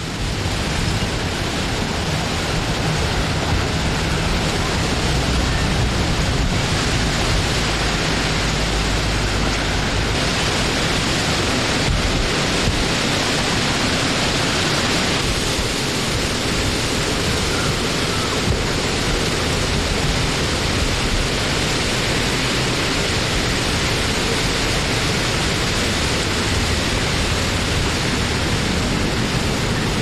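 Steady wind blowing: a dense, even hiss with a low rumble underneath that swells and eases.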